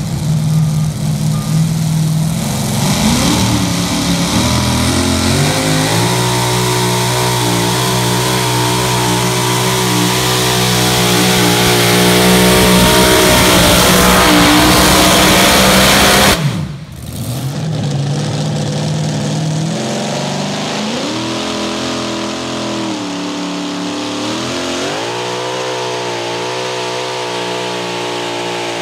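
Supercharged engine of a two-wheel-drive Chevrolet pulling truck running hard under load on a pull, its pitch climbing over the first few seconds and then holding high. About halfway through it cuts off abruptly to another run of the same truck, whose engine climbs, dips and climbs again.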